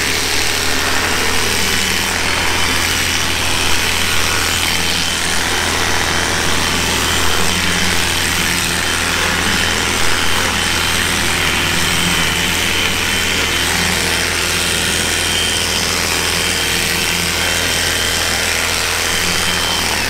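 Electric cattle clippers running steadily as they shear the long hair off the switch of a dairy cow's tail, a motor noise with a thin steady high whine over it.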